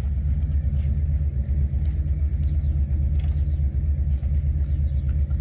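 A motor vehicle engine idling with a steady low rumble.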